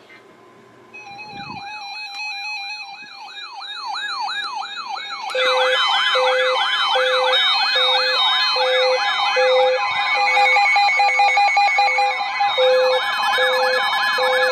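Layered electronic siren tones. A fast up-and-down yelp starts about a second in, and about five seconds in it grows denser as more siren tones join it, along with a steady repeating beep.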